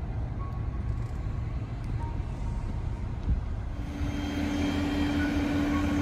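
A low, noisy rumble with a single thump about three seconds in. About four seconds in, a louder steady engine drone with a hum takes over: a heavy crane truck's engine running.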